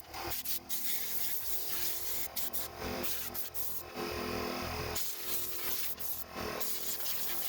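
Hissing spray let off in a run of blasts with short breaks between them, cleaning debris out of a chainsaw.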